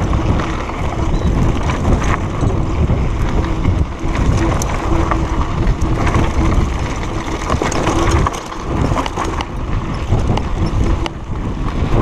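Wind buffeting the microphone over the rattle of a mountain bike riding fast down a rough, stony dirt trail, with tyres crunching over loose ground and scattered sharp knocks and clatter from the bike.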